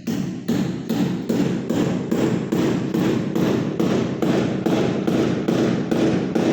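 Rapid, steady hammer blows, about three a second, each a sharp knock.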